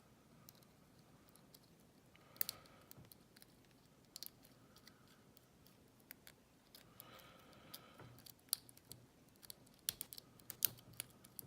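Lock pick and tension wrench working in the keyway of a small Lockwood 232 padlock: irregular small metallic clicks and ticks with brief scraping, in clusters about two and seven seconds in and more often near the end.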